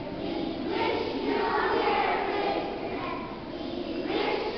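A choir of young children singing together, many voices blending into sustained notes.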